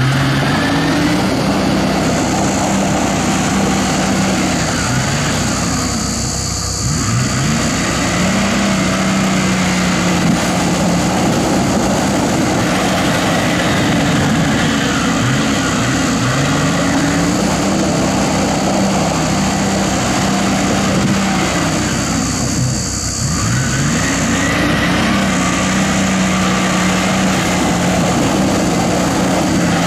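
Toyota Land Cruiser HDJ80's turbo-diesel straight-six engine running hard at high revs. The revs drop and climb again twice, with a steady high whine above the engine.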